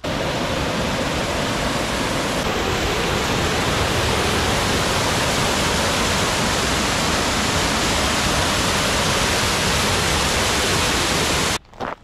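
Small waterfall spilling over a stone ledge into a rocky stream: a loud, steady rush of falling water that cuts off suddenly near the end.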